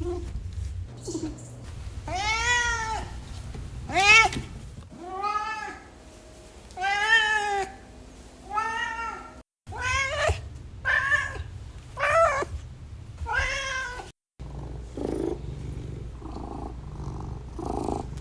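House cat meowing repeatedly: about nine separate meows, each rising then falling in pitch, then softer, fainter cat sounds near the end.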